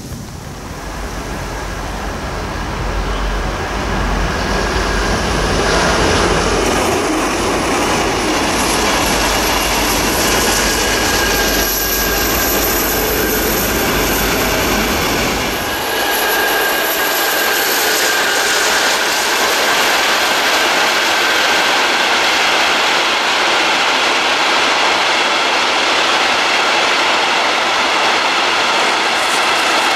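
An empty freight train of hopper wagons behind a class 233 diesel locomotive passes. A deep diesel rumble builds over the first few seconds and falls away about halfway through. The wagons roll by with wheel clatter on the rail joints and a high, thin wheel squeal.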